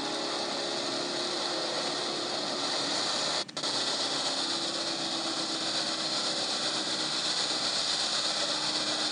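Motorboat engine running steadily under a constant hiss of wind and water, as heard from a moving coaching launch. The sound drops out briefly about three and a half seconds in.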